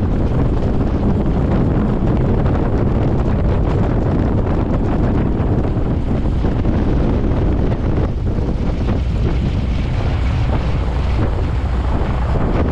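Biplane engine running at low power while taxiing, with the propeller wash buffeting the tail-mounted microphone as steady wind noise over a low rumble.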